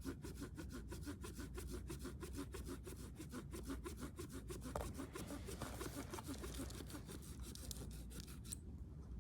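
Hand saw cutting through wood in quick, regular back-and-forth strokes, stopping about eight and a half seconds in.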